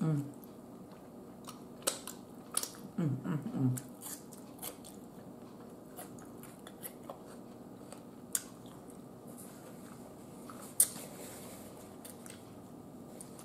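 Eating barbecue ribs: chewing with scattered wet mouth clicks and smacks. A brief low hum of the voice comes about three seconds in.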